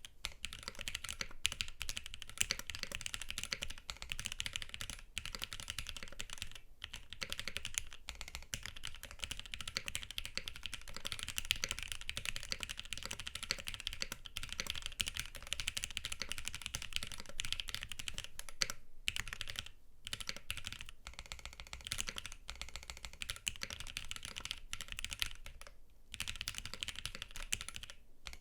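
Continuous typing on a custom mechanical keyboard with linear Gateron Milky Yellow Pro switches, lubed with 205g0 and filmed, mounted on an aluminium plate under GMK keycaps. The typing pauses briefly a few times in the second half.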